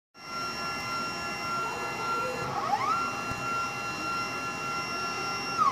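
3D printer stepper motors whining as the print head moves during an auto bed-leveling (bed tilt compensation) routine: a steady whine whose pitch glides up to a new level about halfway through and drops as the move stops near the end, over a steady machine whir.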